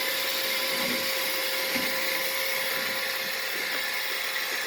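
Roomba robot vacuum running steadily, a constant whir of its motor and brushes with a high hiss and a steady hum.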